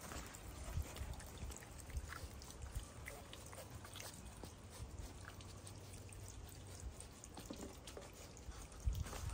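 Faint, scattered scratches and taps of coatis' claws on a wooden log and in wood-chip mulch as they forage, over a low rumble.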